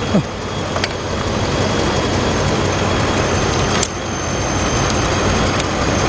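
2013 Ram 1500 engine idling with the hood up, with a thin, steady high whistle from the alternator as it charges the battery. A sharp click just before four seconds in, and a fainter one about a second in.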